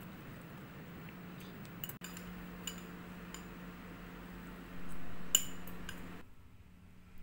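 Metal cutlery clinking lightly against ceramic bowls while eating, a handful of separate clinks over a steady low hum.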